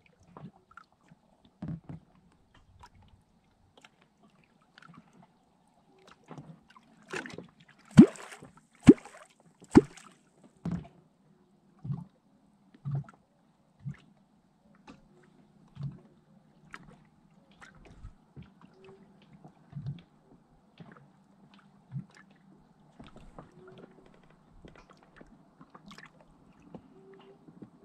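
A wooden clonk (catfish call) struck into the river surface again and again, each stroke a short deep plop with a gurgle. Three strong strokes come close together about eight seconds in, then single strokes every second or two, meant to call catfish up to the bait.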